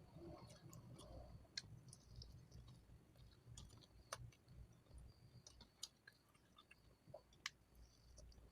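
Faint chewing while eating fried chicken, with scattered small mouth clicks throughout.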